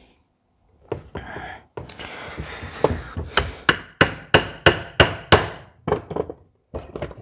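Hammer tapping on the metal of a disassembled diesel fuel injection pump, a run of sharp strikes at about three a second that slows near the end. The tapping works a stuck part loose.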